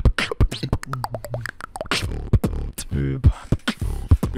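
Human beatboxing into a microphone: rapid, sharp kick and snare clicks several to the second, with short hummed bass notes between them.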